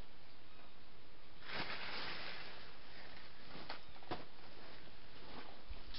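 Soft rustling of leaves and grass, swelling for a second or so about a second and a half in, with a few faint light clicks.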